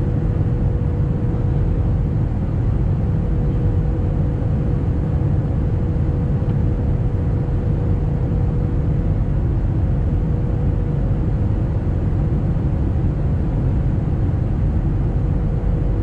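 Steady low rumble of a jet airliner's cabin in flight, with a constant hum running through it.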